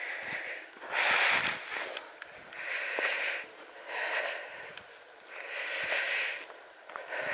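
A walker breathing hard close to the microphone, about six breaths a little over a second apart, with light footsteps on a dirt path.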